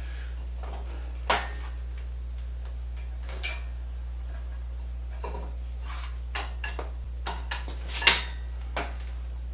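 Scattered metallic clinks and knocks from working a heavy machine off machinery skates with hand tools and steel. One sharp knock comes about a second in, more follow in the second half, and the loudest comes near the end, over a steady low hum.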